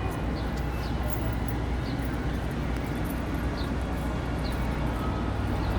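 Steady low machinery rumble from a docked cruise ship and its berth, with short high chirps every second or so.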